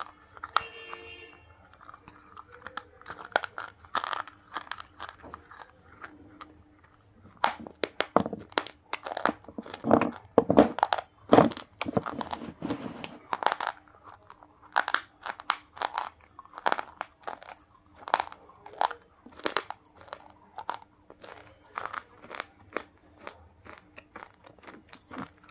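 Close-miked biting and crunching of a pink chalky 'dry bar' block, a quick run of sharp, crackling crunches and chewing, most intense in the middle.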